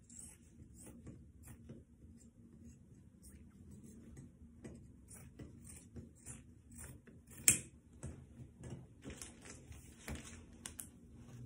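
Hands handling fabric and sewing tools on a floor: faint rustling and many small clicks and taps, with one sharp, louder click about seven and a half seconds in.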